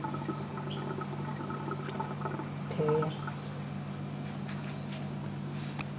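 Steady low hum from a running appliance, with a few faint light clicks.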